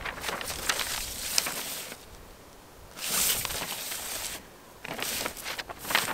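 Large paper road map rustling and crinkling as it is unfolded and smoothed flat on a table, in several bursts with two short pauses between.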